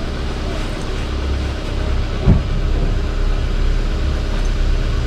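Car engine idling steadily, heard from a camera on the car's roof, with a single knock about two seconds in.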